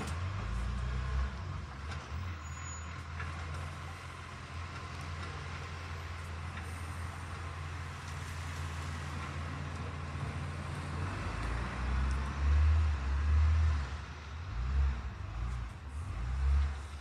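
Garbage truck's diesel engine running steadily at low revs. There are a few louder swells in the rumble in the last few seconds.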